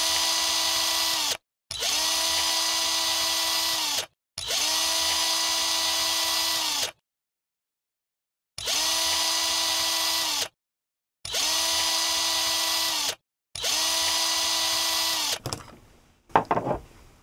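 Small electric screwdriver motor running in six bursts of steady whine, backing out the case screws of an Icom AH-705 antenna tuner. The pitch sags as each burst winds down, and dead silence falls between bursts. A few light handling knocks come near the end.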